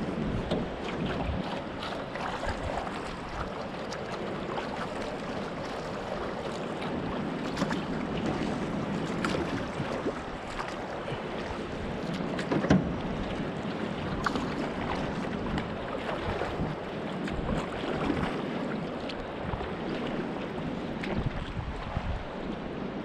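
Canoe paddled through moving water below a falls: a steady rush of water with irregular splashes and knocks from the paddle and hull, and wind on the microphone. The sharpest knock comes about halfway through.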